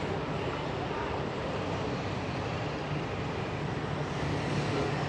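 Steady city street traffic noise: a continuous hum of vehicle engines and tyres, with no single event standing out.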